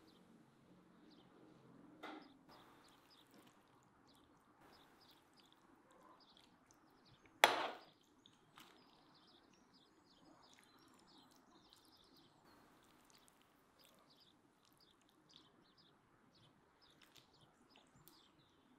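Faint bird chirps in the background, broken by one sharp knock about seven and a half seconds in and a lighter one about two seconds in.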